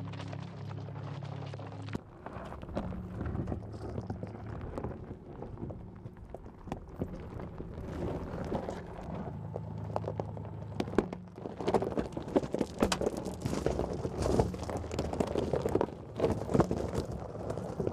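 Electric Mercedes G-Class driving off-road: tyres crunching and knocking over stones and gravel above a low steady hum. The knocks grow louder and more frequent in the second half.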